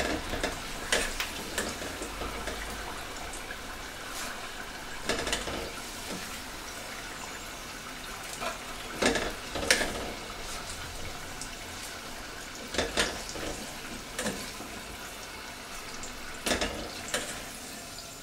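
Potato wedges frying in a saucepan of hot oil, a steady bubbling hiss, with a metal spoon and tongs clinking against the pan now and then as wedges are lifted out.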